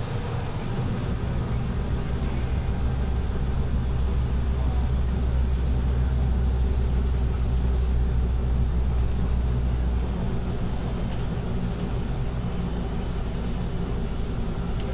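City bus heard from inside while driving: a low engine drone with road and tyre noise. The drone grows louder over the first few seconds and drops back about ten seconds in.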